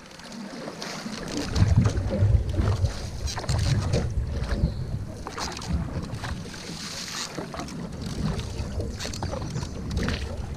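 Single-blade paddle strokes splashing and pulling through the water beside a canoe, with wind noise on the microphone, strongest for a couple of seconds near the start.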